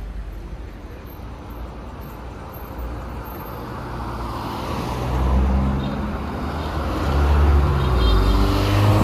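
Street traffic: car engines and tyres passing, growing louder about halfway in as vehicles go by close.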